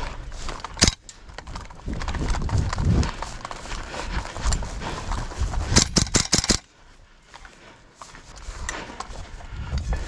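An airsoft player on the move: heavy, uneven footsteps and hard breathing close to the microphone. A little past the middle comes a quick string of about six sharp clacks, then it goes quieter for a moment.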